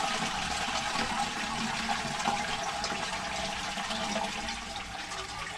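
Toilet cistern emptying through an Ideal Standard/Armitage Shanks push-button flush valve into the pan: a steady rush of water that tails off near the end, as the cistern drains with its supply turned off.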